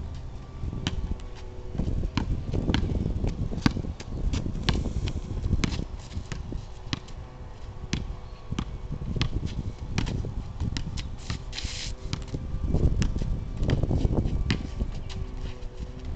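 A basketball bouncing on an asphalt driveway as it is dribbled and shot, sharp irregular knocks, with a few spells of low wind rumble on the microphone.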